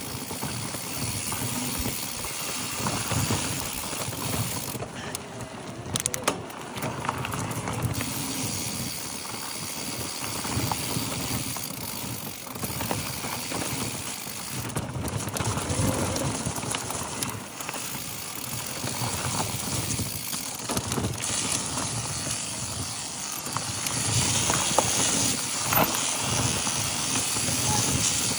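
Mountain bike riding over dry dirt singletrack: knobby tyres crunching over dirt, gravel and dry leaves, with the bike rattling and knocking over bumps. Heard from a camera mounted on the handlebars.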